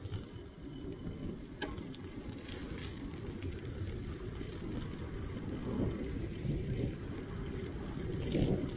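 Wind rumbling on the microphone of a camera riding along on a moving bicycle, with one short click about a second and a half in.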